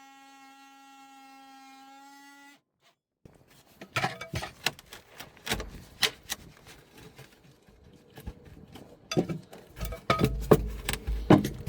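A small power tool buzzes at a steady pitch for about two and a half seconds and then cuts off. After a short pause comes a run of irregular knocks and clatters as a stapled plywood panel is worked loose and pulled out, its staples breaking.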